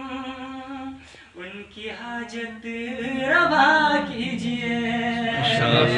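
A young man singing a manqabat (an Urdu devotional song) unaccompanied, in long held notes that bend and slide in pitch, with a short break about a second in before the next phrase. Near the end the sound grows fuller as more voices come in.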